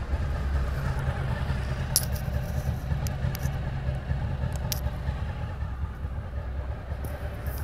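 Honda VFR800's V4 engine idling steadily, with a few short sharp clicks over it.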